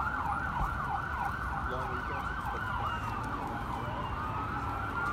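Emergency vehicle sirens, more than one at once: a fast yelp rising and falling several times a second, with a slower rising wail coming in near the end.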